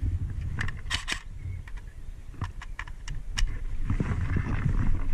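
Irregular sharp clicks and snaps, a quick cluster about a second in and several more a second later, then rustling near the end, over a steady low rumble.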